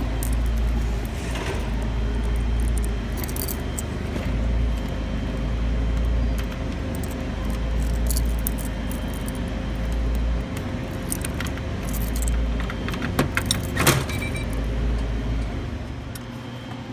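Keys jangling with metal clicks and rattles as a vending machine's lock and door are worked open, over a low rumble on the phone's microphone.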